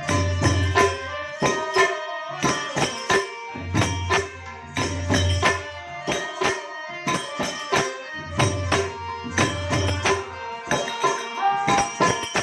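Gujarati santvani devotional folk music: held melody tones over a steady rhythm of hand percussion, with deep drum beats in some stretches.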